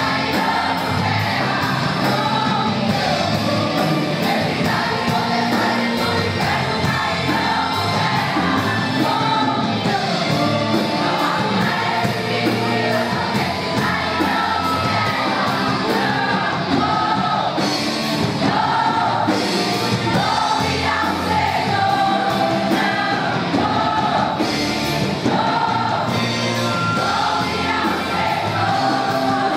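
Women's choir singing a Portuguese gospel praise song with a band accompanying, drums keeping a steady beat.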